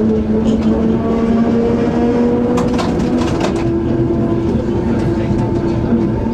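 Historic tram running on its rails, heard from the driver's cab: a steady motor whine over the rumble of the wheels, its pitch dropping to a new steady tone about halfway through, with a short run of clicks and knocks from the wheels at about the same point.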